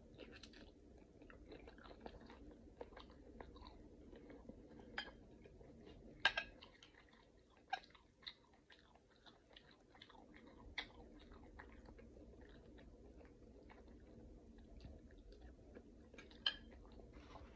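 Faint close-up chewing of a person eating shrimp: many soft wet mouth clicks, with a few sharper clicks standing out, the loudest about six seconds in, over a faint steady hum.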